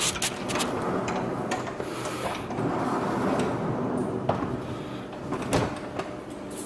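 Sliding entrance door rumbling along its track, with scattered clicks and knocks.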